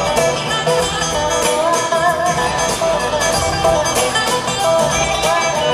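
Live acoustic blues band playing an instrumental break between verses: a guitar lead with gliding, wavering notes over upright bass and drums.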